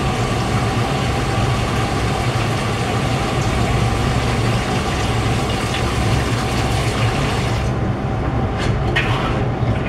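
A steady low mechanical drone with a hiss over it. The high part of the hiss drops away about eight seconds in, and a few short clicks follow near the end.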